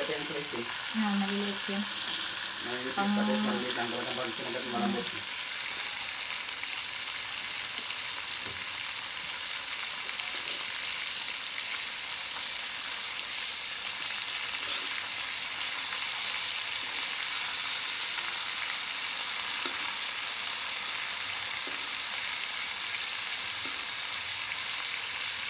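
Thin slices of beef sirloin frying in a wok in soy sauce and margarine, with a steady sizzle, turned now and then with metal tongs.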